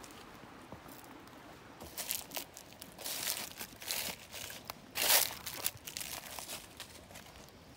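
Footsteps crunching through dry fallen leaves, in irregular crunches, the loudest about five seconds in.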